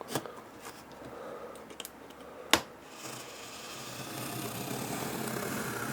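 Cardboard box and packaging of a Blu-ray player being handled while unboxing: a few light clicks, one sharp snap about two and a half seconds in, then rustling and scraping that grows louder toward the end.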